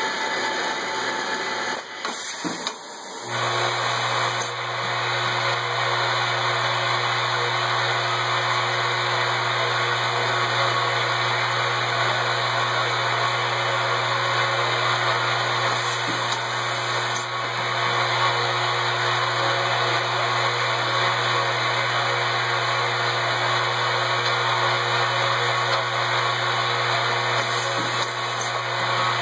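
Automated laser-marking and parts-handling machinery running: a steady whirring noise with a low hum that sets in about three seconds in and holds.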